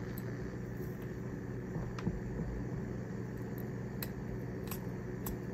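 Steady low room hum with a few faint, light clicks as a hex driver tightens small screws into a carbon-fibre drone frame's top plate.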